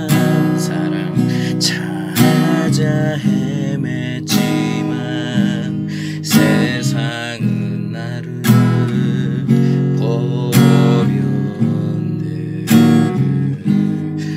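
Acoustic guitar strumming chords in an instrumental passage of a gospel song, with a strong strum about every two seconds and lighter strokes between.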